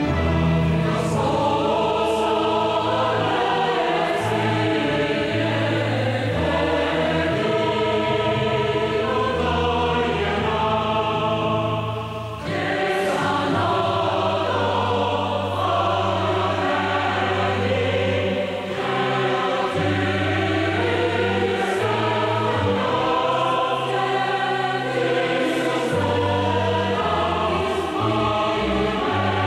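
Choral music: a choir singing held, slowly changing chords over a low bass line, with a brief break about twelve seconds in.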